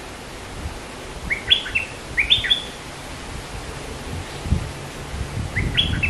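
A bulbul calling: two quick phrases of short, sharply rising-and-falling whistled notes about a second apart, then another phrase beginning near the end.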